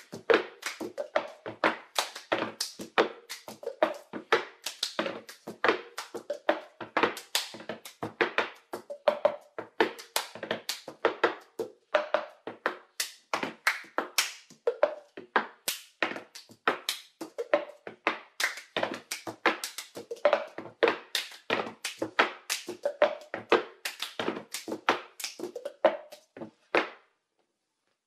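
Cup-rhythm percussion: two empty plastic cups slapped, flipped and set down hard on a tabletop, with hand claps and table slaps, in a quick, steady, repeating rhythm. It breaks off sharply near the end.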